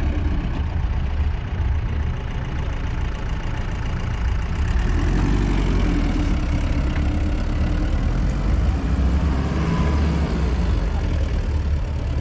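Diesel engine of a Mahindra Thar 4x4 running under load as the jeep spins its wheels in soft dune sand, trying to drive out with its tyres aired down for grip.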